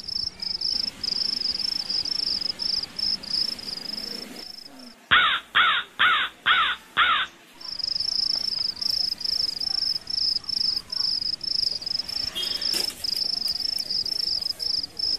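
A crow cawing five times in quick succession about five seconds in, over an insect's continuous high-pitched pulsing trill that drops out around the caws and then resumes.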